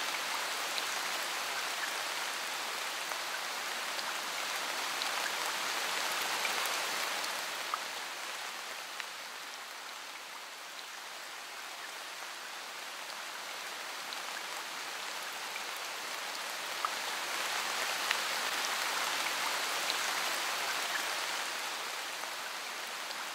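Steady hiss of water like rain, with a few faint ticks scattered through it. It eases off for a few seconds midway and then swells back up.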